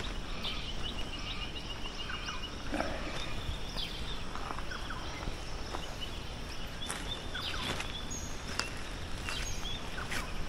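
Birds calling: a rapid high trill of evenly spaced notes early on, then scattered short chirps and whistles, over a steady background hiss, with footsteps on the track.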